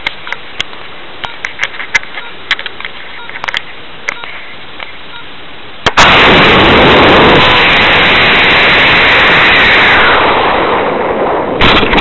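Faint clicks, then about six seconds in two H160 high-power rocket motors ignite unexpectedly, a sudden loud burn of thrust noise that holds for about four seconds. It then fades into the rush of wind as the rocket climbs, heard from a camera riding on the rocket.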